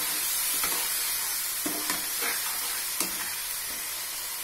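Tomato and spice masala sizzling in a nonstick kadai as it is fried down, with a steady hiss and a few scattered clicks and scrapes of a metal spatula stirring it against the pan.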